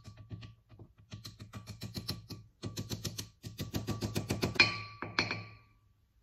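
Rapid light hammer taps, about ten a second in short runs, driving a grease seal into a brake rotor hub a little at a time around its edge. The taps grow louder and ring near the end, the ringing that means the seal has seated even with the rotor.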